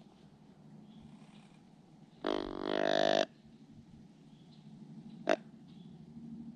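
Deer grunt call blown by mouth: one drawn-out low grunt of about a second, a little over two seconds in. A single short, sharp sound follows about five seconds in.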